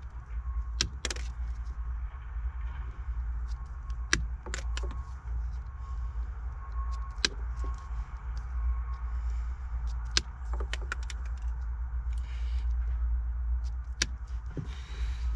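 Side cutters snipping wire ends to length, with scattered sharp clicks from the cuts and from handling the wires, about ten in all. A steady low rumble runs underneath.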